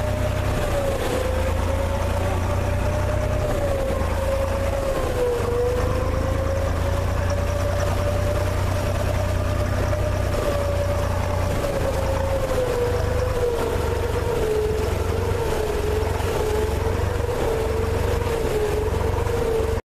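The engine of a small wooden harbour sampan running steadily under way, a deep rumble with a humming tone that wavers and sinks a little in pitch near the end.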